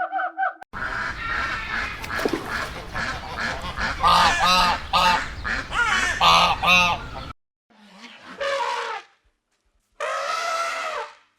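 Geese honking: a quick run of short, repeated honks over background noise, then a few longer single calls separated by silent gaps.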